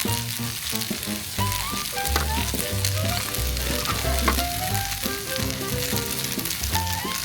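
Food sizzling and crackling as it fries in a hot pan, a steady hiss with small pops, under background music with a simple melody and bass.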